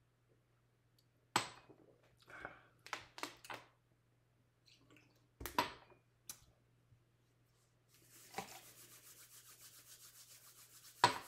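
Palms rubbed briskly together for about three seconds near the end, a fast, even swishing. Before it come a few scattered knocks and clicks of small glasses set down on a stone countertop.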